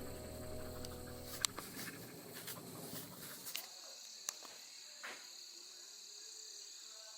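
Insects chirring in a steady, high, even drone, with a few faint clicks. Background music fades out within the first second and a half.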